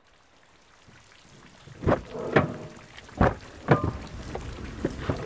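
A string of sharp knocks and thumps inside a car, about seven irregular strikes half a second to a second apart, rising out of near silence.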